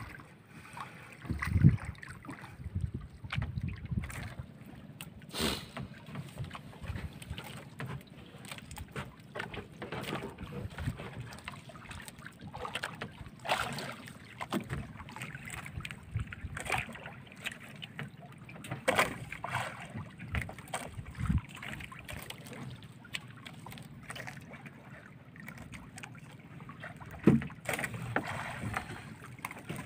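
Gill net being hauled by hand into a small boat: the wet mesh rustling as it is pulled in, with irregular knocks against the hull and a few heavier thumps, about a second in, in the middle and near the end.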